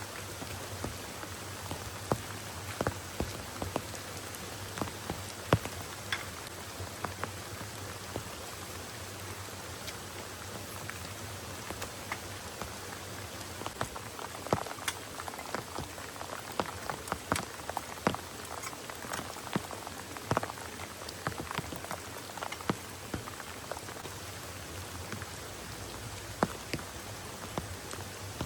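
Heavy rain falling steadily, with many sharp individual drops striking close by, at times several a second.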